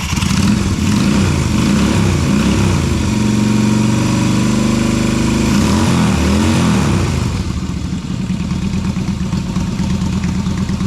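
Yamaha Virago 250's air-cooled V-twin engine being revved several times and then settling back to idle near the end. It runs with its cam chain re-tensioned and its timing corrected, giving the V-twin sound in place of the single-cylinder sound it had when out of time.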